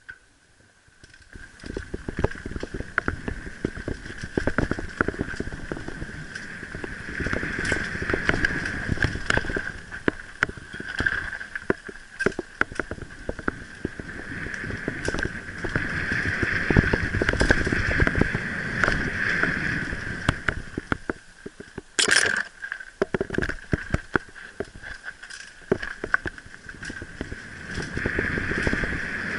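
Mountain bike riding fast down a dirt forest trail, heard from a helmet camera: constant clattering and knocking of the bike and camera over bumps and roots, with tyre and wind rumble. Quiet for the first second, then the rattling sets in, with one sharp louder burst about two-thirds of the way through.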